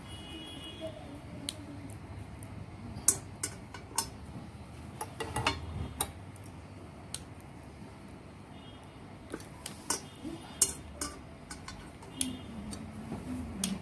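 Metal knitting needles clicking and tapping against each other as stitches are knitted by hand: scattered sharp clicks, clustered about three to six seconds in and again from about nine seconds on.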